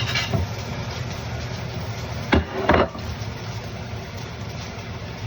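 A steady low hum with a few knocks and clatters; the loudest are two close together about two and a half seconds in.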